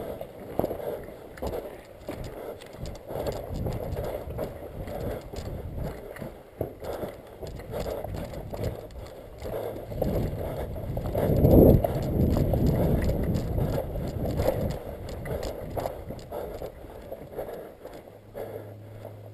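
Footsteps and gear rattle of an airsoft player moving quickly over rough ground, close to the camera's microphone, with a louder rush of rubbing or wind noise about eleven seconds in.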